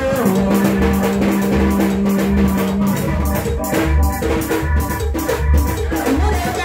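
Live Latin-style music: a woman singing into a handheld microphone over electronic keyboard backing with a steady bass beat about twice a second. A long held note fills the first three seconds.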